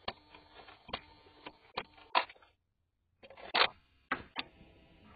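A dog nosing a Furbo dog camera: irregular sharp clicks and knocks close to the microphone, about seven in all, as its muzzle bumps the housing. The sound cuts out completely for about half a second midway.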